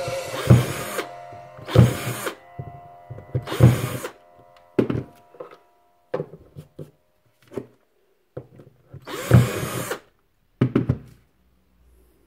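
Cordless drill run in about five short bursts, drilling holes in ping pong balls held in a plastic cube, with clicks and knocks of the plastic cube being handled between the bursts.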